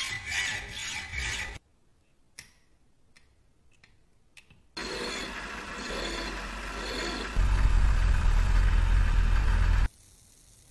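A steel bar is ground against a motor-driven grinding wheel: a loud, steady grinding noise starting about five seconds in, with the motor's low hum getting louder partway through, then cutting off near the end. Before it comes a second and a half of sawing on a threaded rod clamped in a vise.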